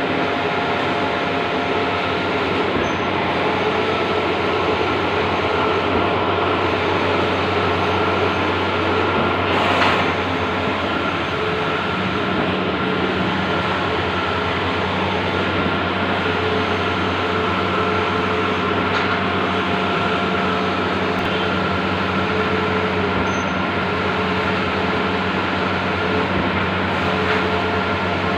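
Large-format outdoor banner printer running, a steady machine hum with noise from its motors and fans, with one brief louder moment about ten seconds in.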